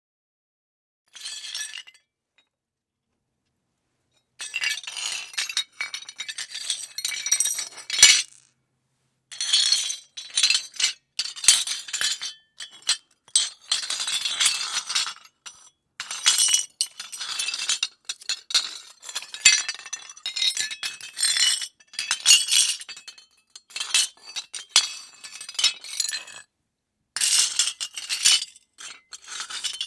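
Rubble breaking: hard broken pieces clattering and clinking together in a run of bursts with short gaps, bright and high with little low thud. A brief burst comes about a second in, then after a pause repeated bursts follow, with the sharpest crack about eight seconds in.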